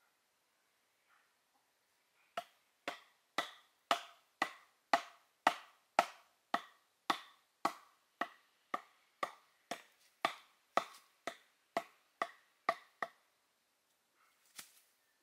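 Bamboo being struck about twenty times in a steady rhythm of roughly two hard, woody knocks a second, each with a short ring. The knocking starts a couple of seconds in and stops a couple of seconds before the end.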